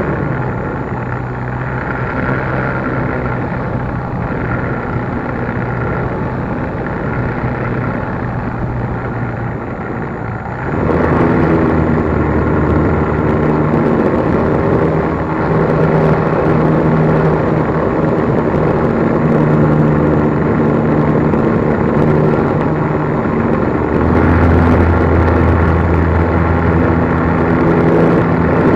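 RC plane's motor and propeller running steadily in flight, heard from the plane's onboard action camera with wind rush over the microphone; the throttle steps up sharply about ten seconds in.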